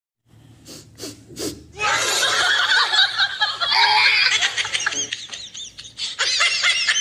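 Laughter that breaks out about two seconds in and carries on, after a few short soft strokes.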